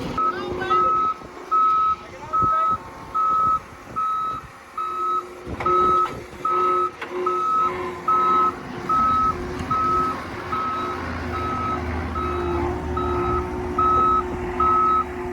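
Backup alarm on a John Deere 331G compact track loader beeping steadily, about one and a quarter beeps a second, as the machine reverses. The engine's low running sound comes up under the beeps near the end.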